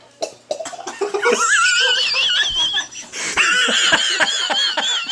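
High-pitched wheezing laughter: a thin, wavering squeal that starts about a second in, breaks off for a gasp near the middle, then resumes.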